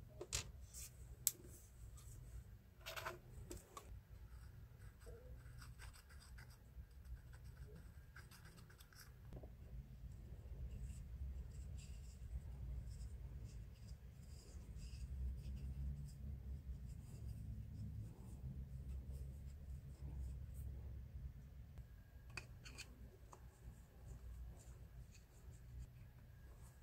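Faint bench-work handling sounds: a few sharp clicks and light scraping and rubbing as a metal tube is glued and pushed into a burl-wood pen blank, over a low steady rumble. The clicks come in the first few seconds and again a little before the end.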